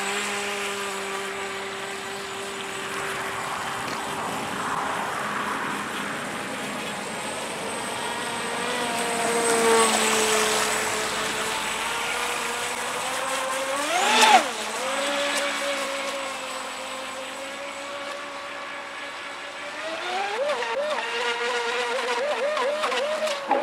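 Feilun FT012 RC racing boat's brushless electric motor whining as the boat runs on the water, its pitch rising and falling with the throttle. About fourteen seconds in it gives a short, sharp surge in pitch and loudness, and near the end the pitch wobbles up and down in quick blips.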